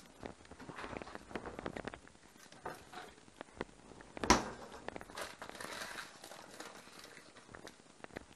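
Kitchen handling noises: scattered light taps, one sharp knock about four seconds in, then paper crinkling as a set block of warabi mochi in its paper wrapping is picked up and handled.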